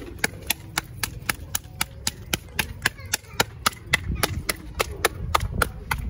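Balls of roti dough slapped flat between bare palms by hand, a quick, even patting of about four slaps a second.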